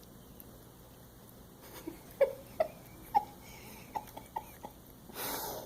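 Cat licking at whipped cream on its nose: a series of short, quiet wet tongue smacks, about seven in under three seconds, followed near the end by a brief breathy rush.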